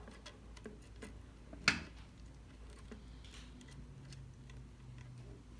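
Light, irregular metal clicks and ticks from fingers working a tiny screw and a finger guard at the presser foot of an industrial sewing machine, with one sharper click about a second and a half in.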